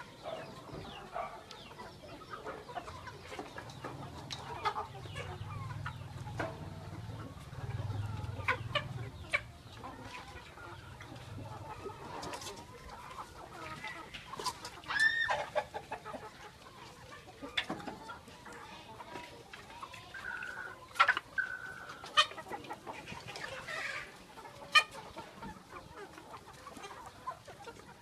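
Cambodian native village chickens clucking, with scattered short calls throughout.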